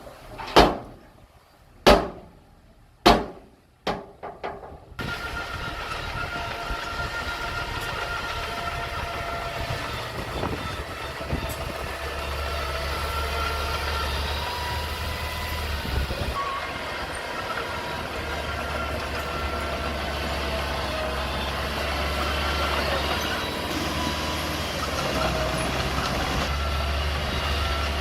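Five sharp knocks over the first few seconds, each ringing briefly, then a Komatsu mini bulldozer working: a low engine hum under a steady clatter, with wavering squeals of its steel tracks.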